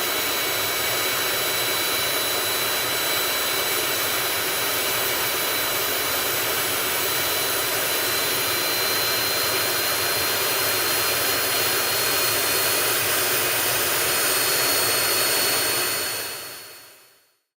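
Learjet jet engine running steadily just after its first start, heard from outside the aircraft: a dense rushing hiss with a thin high whine over it. It fades out near the end.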